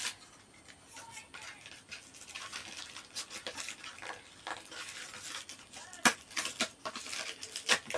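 Handling and opening the plastic packaging of a set of phone camera lens protectors: light rustling and scattered small plastic clicks, with a sharper click about six seconds in and another near the end.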